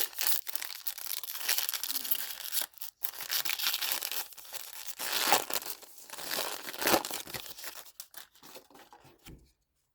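A trading-card pack wrapper being torn open and crinkled, with sharp crackles for most of the time, dying away about eight seconds in.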